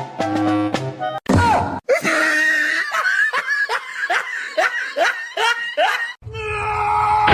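Background music, broken for about four seconds by a run of short, high, falling laugh-like calls, roughly three a second, before the music resumes.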